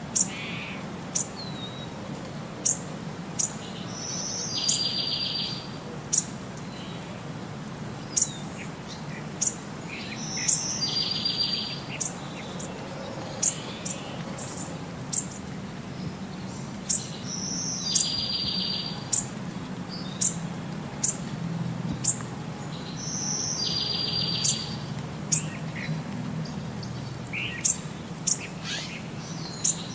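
Bird-like chirps: short sharp high chirps about every second and a half, with a buzzy trill every six or seven seconds, repeating evenly like a loop over a low steady hum.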